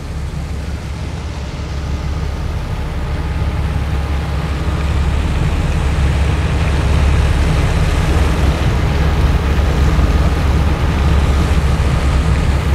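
A tugboat's engine running with a steady low drone, heard from on board. It grows gradually louder over the first several seconds.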